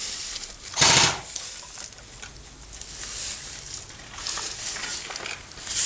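Footsteps and rustling in loose straw as a person moves about, with one short, loud burst of noise about a second in.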